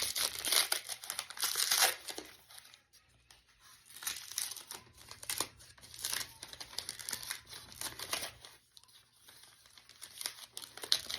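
Paper crinkling and tearing in irregular bursts as a gift wrapped in plain paper is unwrapped by hand, busiest in the first two seconds.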